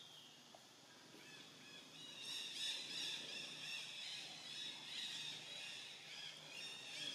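Many birds chirping together in forest, a dense run of short high chirps that swells up about a second in and carries on.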